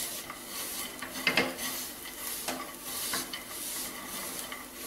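A thick mixture of ground dates and chopped nuts being stirred and scraped around a non-stick pan, in irregular strokes, over a faint sizzle of ghee on low heat.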